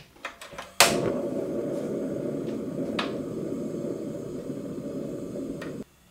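Portable cassette gas stove being lit by turning its knob: a few igniter clicks, then the burner catches with a sudden whoosh and runs with a steady low rushing sound, which cuts off suddenly near the end.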